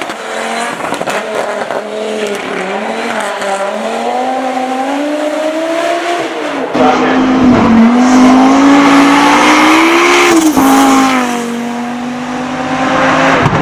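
Audi Quattro S1 Pikes Peak replica's 2.3-litre turbocharged five-cylinder engine revving hard through the gears. It gets louder about seven seconds in, its pitch climbs steadily, then drops sharply at a gear change about ten and a half seconds in.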